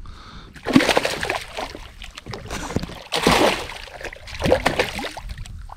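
Water splashing in several bursts, about a second in, around three seconds in and again a little later, as a hooked largemouth bass thrashes in lily pads beside a kayak and is grabbed by hand.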